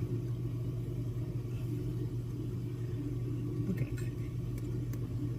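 A steady low mechanical hum, like a small motor or fan running, with a few faint clicks near the end.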